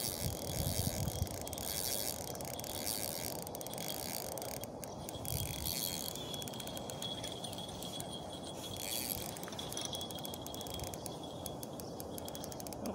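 Spinning reel being cranked to wind in line, its gears giving a fast run of fine ticks.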